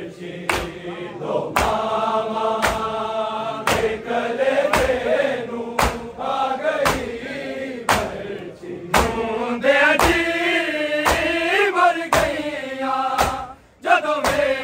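Men chanting a Punjabi noha (Shia lament) together, kept in time by a sharp beat about once a second: matam, hands striking chests. The voices break off briefly near the end.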